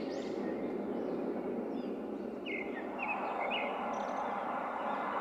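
Outdoor ambience sound effect: a steady rushing background with birds chirping, a quick run of chirps at the start and a few more in the middle.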